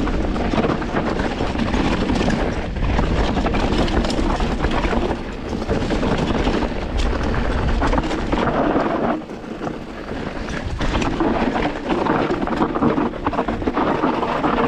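Wind buffeting the microphone of a camera on a moving mountain bike, with the bike rattling and tyres crunching over rough trail in many quick clicks and knocks. The wind eases briefly about nine seconds in.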